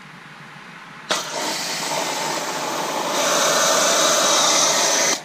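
Kranzle 1122TST pressure washer spraying: a hissing jet of water starts suddenly about a second in, grows louder and brighter about three seconds in, and cuts off just before the end.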